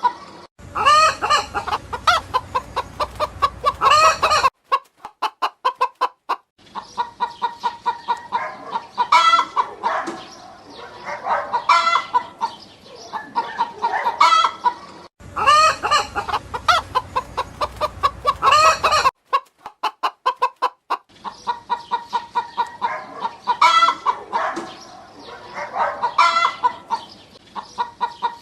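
Domestic hens clucking: runs of short, repeated clucks broken by louder, drawn-out cackling calls. The sound cuts off abruptly several times, where one clip is spliced to the next.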